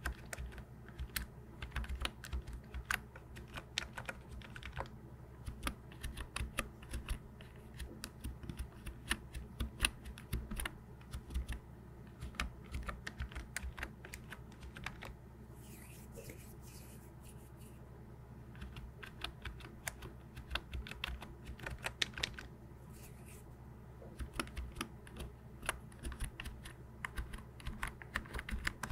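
Fingers typing on a backlit computer keyboard: a quick, irregular clatter of key clicks, with a pause of a few seconds about halfway through before the typing resumes.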